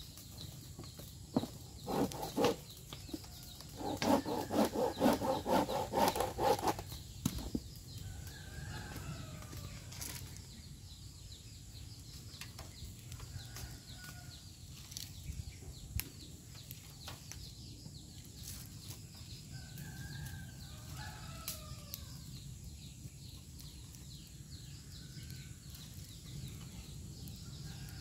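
Fire in a cinder-block rocket stove burning green leaves and fresh branches, with scattered sharp cracks and pops. About four seconds in, a loud run of rapid pulsing animal calls lasts about three seconds. Thin, gliding bird calls come later.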